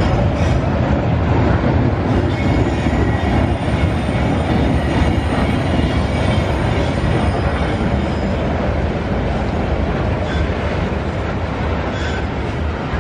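Loaded freight wagons (steel-coil flatcars, then cement hopper cars) rolling past on the rails: a steady, loud rumble of wheels on track, with a faint high wheel squeal through the middle.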